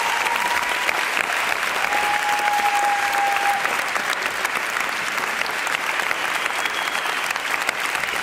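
Audience applauding: dense, steady clapping from a large crowd, with a brief held tone about two seconds in.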